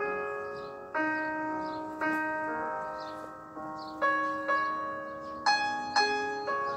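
Background instrumental music: slow, chiming struck notes and chords, about one a second, each ringing and fading before the next.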